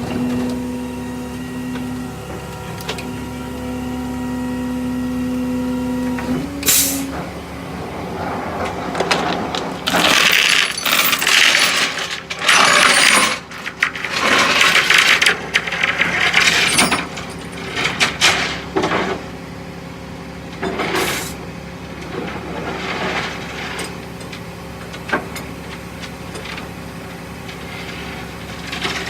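Tow truck equipment at work: a steady mechanical whine for about six seconds, then repeated metal clanks and rattles with loud hissing bursts.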